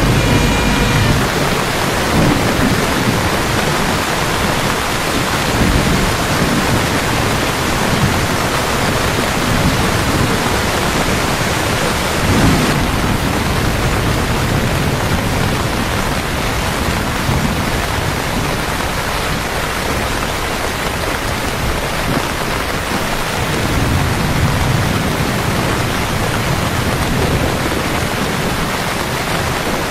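Heavy rain pouring steadily onto the streets, with low rumbles swelling now and then.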